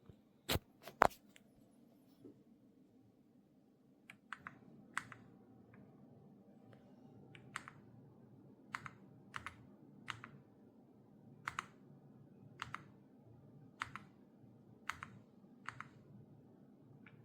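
Keys of an EPOMAKER x Aula F99 mechanical keyboard being pressed one at a time, giving separate sharp keystroke clacks. There are a few in the first second, then a spaced run of about one or two a second from about four seconds in.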